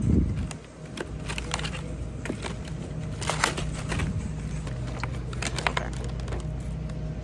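Handling noise of grocery items: scattered clicks and crinkling rustles of plastic packaging such as a raspberry clamshell, over a steady low hum, with a dull thump right at the start.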